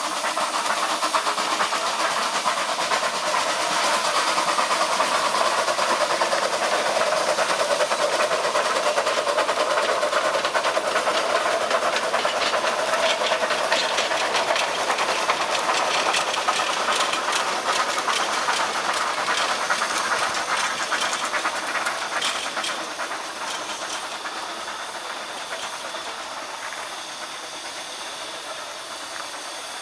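Narrow-gauge steam locomotive hissing steam as it hauls a train of carriages past, with wheel clicks over the rail joints. The sound fades over the last several seconds as the train draws away.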